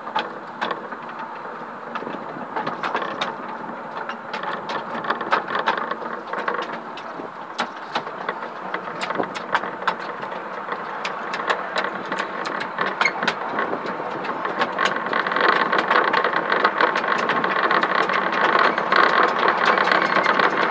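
Small-gauge railway carriage running along the track: wheels clicking over rail joints and points, with a continuous rattle and rumble that grows louder about three-quarters of the way through as the train picks up speed.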